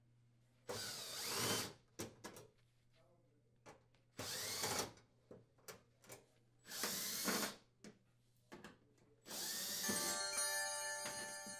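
Cordless drill with a 1/4-inch nut driver bit spinning sheet-metal screws out of the oven's rear access panel, in four short runs, each whine rising in pitch as the motor spins up. Near the end a few steady musical tones come in.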